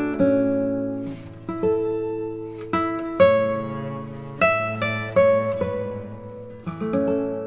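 Background music: an acoustic guitar plucking notes and chords, each one ringing and dying away.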